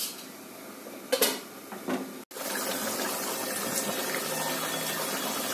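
A couple of light knocks, then after a cut about two seconds in, a steady bubbling hiss of a chicken and potato curry boiling in a nonstick pan, its gravy thickening as the water boils off.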